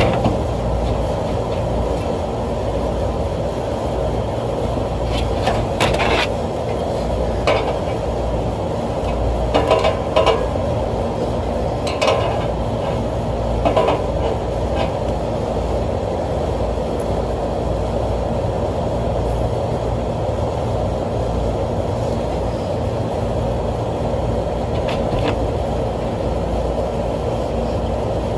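Occasional metal clinks and knocks from handling a condenser fan blade and fitting it onto the new fan motor's shaft, over a steady mechanical background noise.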